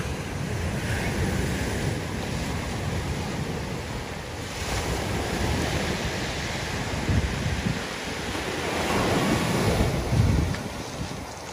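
Sea waves breaking and washing up a pebble beach, with wind buffeting the microphone in low gusts. The surf swells loudest a couple of seconds before the end.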